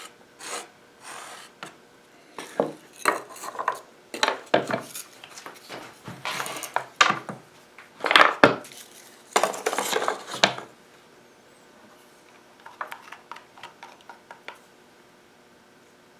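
Irregular clinks, knocks and scrapes of small hard objects being handled during hand work, busy for about ten seconds, then a few light taps and quiet.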